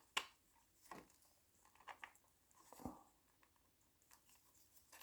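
Near silence, broken by about four faint, short rustles and small clicks roughly a second apart, as gloved hands handle the wiring.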